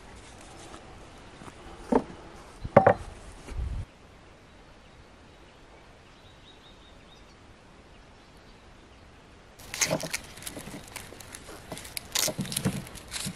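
Dry onion skin crackling and rustling as a knife peels it, a dense run of quick crackles and clicks in the last few seconds. Earlier come two sharp knocks about a second apart and a short low thud.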